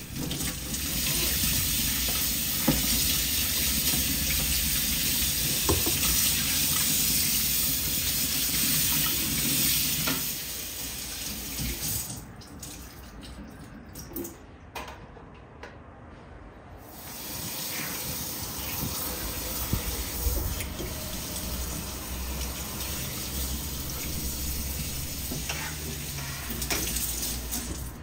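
Kitchen tap running and splashing over a mesh range hood filter as it is rinsed in the sink. The water stops about ten seconds in, followed by a few light knocks as the filter is handled, then a softer steady hiss.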